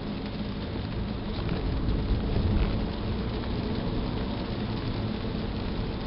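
Steady road and engine rumble inside a moving car, picked up by a Star Eye M868 dashcam's built-in microphone. No rattle from the camera body: its loose buttons are taped down.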